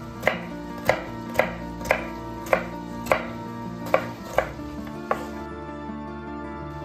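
Kitchen knife chopping a bell pepper on a bamboo cutting board: about nine sharp knocks of the blade on the board, roughly two a second, stopping about five seconds in.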